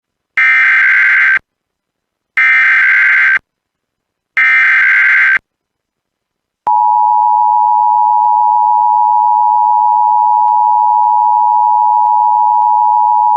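Emergency Alert System header: three one-second bursts of screechy digital SAME data tones, a second apart, opening a new alert. About a second after the third burst, the steady two-tone EAS attention signal begins and holds.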